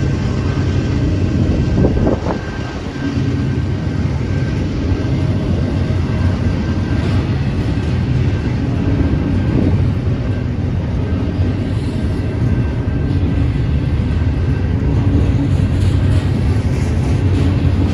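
Double-stack container train's well cars rolling past close by: a steady low rumble of steel wheels on the rails, with a single knock about two seconds in.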